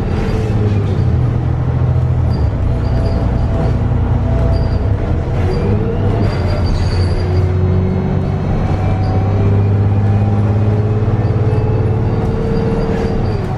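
VDL DB300 bus's Cummins ISBe 250 diesel engine and Voith DIWA 854.5 automatic gearbox running under way, heard from inside the saloon. A low steady drone carries a gearbox whine that climbs slowly in pitch for several seconds, then drops abruptly near the end.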